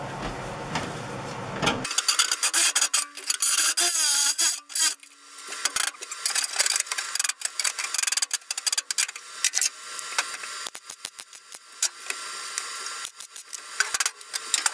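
Electric arc welder stitch-welding a thin sheet-metal floor patch, crackling and sputtering in short, irregular stop-start bursts as each tack is laid. A steady hum runs underneath for the first two seconds before the crackling starts.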